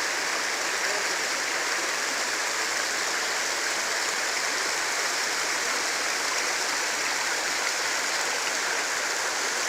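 Stream water flowing steadily, an even, unbroken rush of running water.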